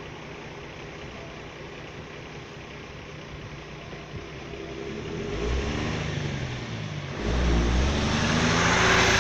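A truck engine idling, then revving and pulling away as it moves off. It grows louder about five seconds in and jumps louder again near seven seconds, the pitch rising and falling through gear changes.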